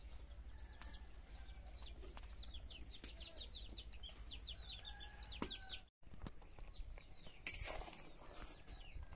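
Small birds, likely chicks, peeping: a quick run of high, short, downward-sliding chirps that cuts off abruptly about six seconds in.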